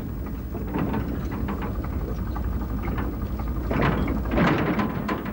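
Location sound of a narrow-gauge railway carriage being pushed by hand along the track: a steady low rumble with scattered knocks and clatter, and a louder burst of noise about four seconds in.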